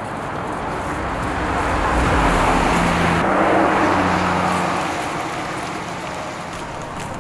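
Ram 1500 RHO pickup, with its twin-turbo 3.0-litre Hurricane straight-six, driving past: engine and tyre noise build to a peak about two to four seconds in, then fade as the truck pulls away.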